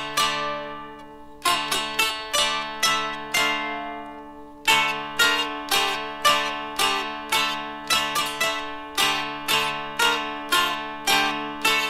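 Dulcimer, a fretted zither with drone strings, played solo: a strummed melody rings over a steady drone. The first few seconds hold a few slow strums left to ring out; from about five seconds in, the strumming turns quicker and even.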